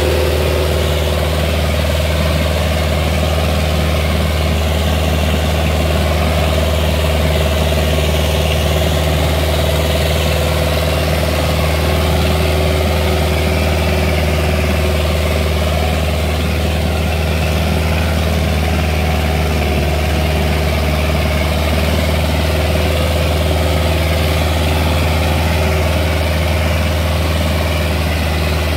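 Sonalika 750 tractor's diesel engine running steadily under heavy load as it drags a 22-disc harrow, an even low drone with no change in pitch.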